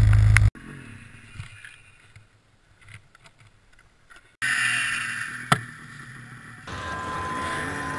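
Ski-Doo snowmobile engine running loud and steady, cut off abruptly about half a second in. A quiet stretch follows, then a rushing hiss with a single sharp knock. Guitar music starts near the end.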